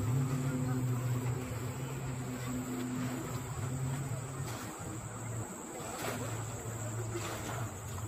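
Crickets or similar insects making a steady high-pitched drone, over a louder low steady hum that fades in and out.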